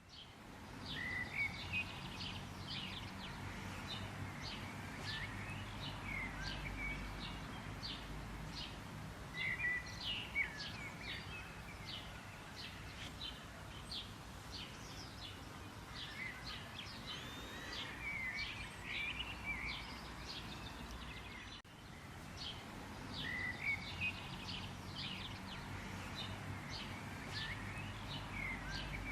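Several small songbirds chirping and singing in quick, repeated high notes, over a steady low background rumble.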